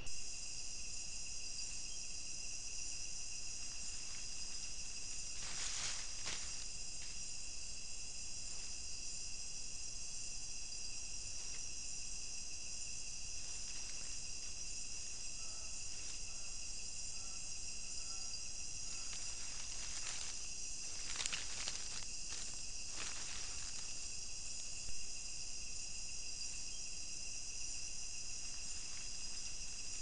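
Chorus of crickets and other insects, trilling steadily in several high-pitched layers. There are a few brief clicks or rustles around six seconds in and again past twenty seconds, and a faint run of short, lower notes midway.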